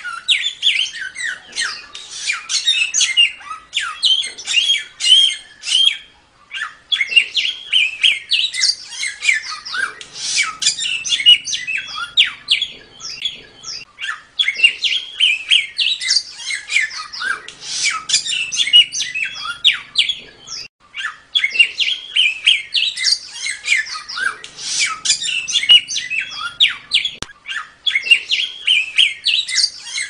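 Samyong songbird singing a rapid, continuous chattering song of quick high notes and squawky phrases, broken by brief pauses a few times.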